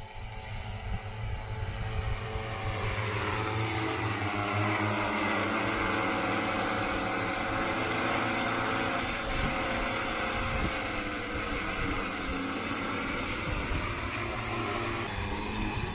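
Multirotor agricultural spraying drone flying low toward the listener. Its rotor hum grows louder over the first few seconds and then holds steady.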